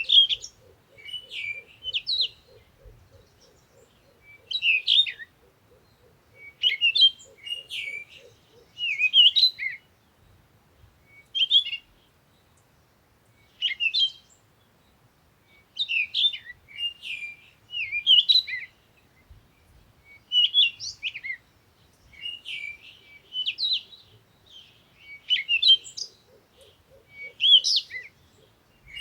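Birds chirping: short, bright phrases of quick chirps repeated every second or two. A faint, rapid low pulsing runs underneath during the first third and again near the end.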